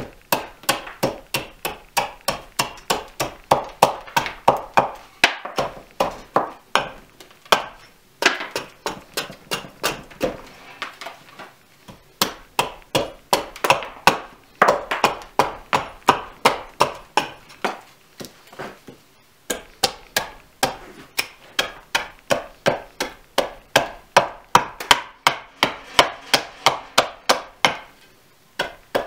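Hultafors axe blade chopping into green birch in quick short strokes, about three a second with brief pauses, as the outside of a wooden mug is roughed out.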